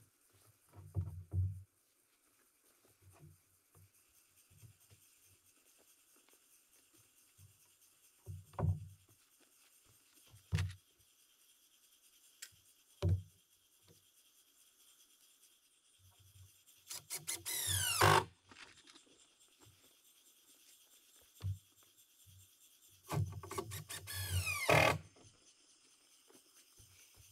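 Cordless power drill driving two screws into the 2x lumber floor frame, its motor whine falling in pitch as each screw bites in. A few wooden knocks from handling boards and tools come first.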